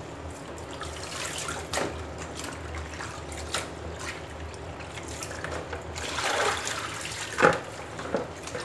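Raw chicken pieces being washed by hand in a bowl of water: water sloshing and dripping, with sharp splashes every second or two as wet pieces are lifted out and dropped into a plastic colander.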